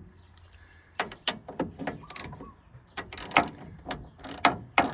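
Hand tools being picked up and handled: about ten sharp, irregular clicks and clacks, closer together in the last two seconds.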